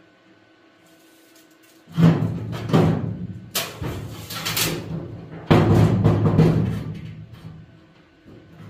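Background music with heavy drum hits and a steady bass, starting suddenly about two seconds in after a quiet first two seconds.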